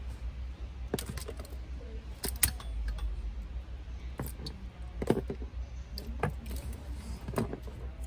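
Irregular clicks and light rattles of wiring-harness connectors and plastic being handled under a car dashboard, over a steady low hum.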